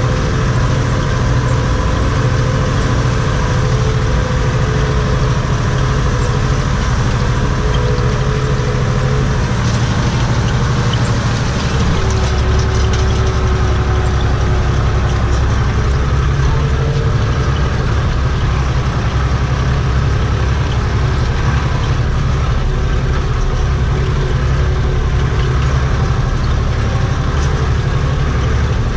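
Steyr 964 Turbo tractor's diesel engine running steadily under load, heard from inside the cab, as it pulls a rotary hay rake through cut grass. About twelve seconds in its note drops a little and the low rumble grows heavier.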